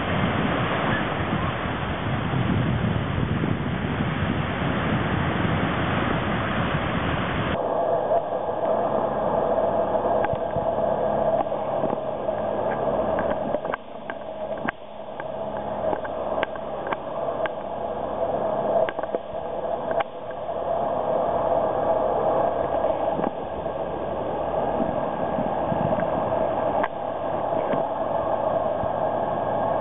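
Wind on the microphone and surf give a loud, even rushing for the first several seconds. About seven seconds in it changes suddenly to a thinner steady hiss with scattered faint clicks.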